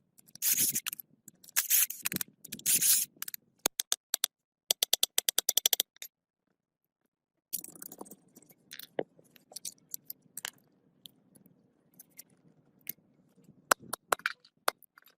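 Hand-tool work on metal: scraping for the first few seconds, then a quick run of sharp clicks, then scattered light clicks over a faint low hum.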